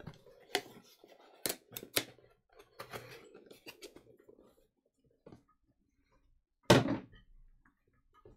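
Scattered sharp clicks and taps for the first few seconds, then a single loud thump about seven seconds in.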